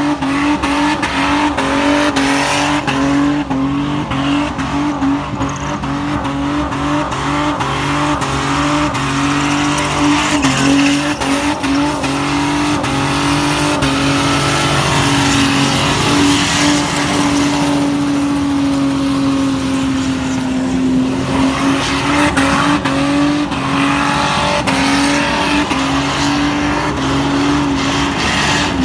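V6 Nissan Pintara engine held at high, mostly steady revs during a burnout, its pitch dipping briefly now and then, over the hiss of the spinning, smoking rear tyres.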